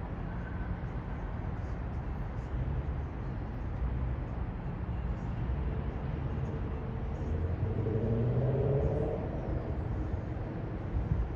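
Urban road-traffic ambience: a steady low rumble of traffic, with a passing vehicle's engine growing louder about eight seconds in and then fading.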